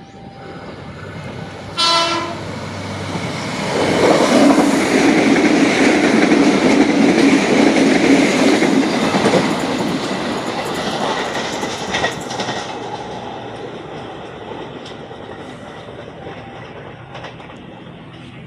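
A train gives one short horn blast, then passes close by with a loud rush of wheel and rail noise that fades slowly as it goes away.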